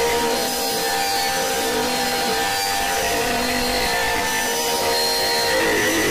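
Harsh, distorted noise drone with several steady held tones layered through it: a dark, grating horror-style soundtrack that stays at an even loudness.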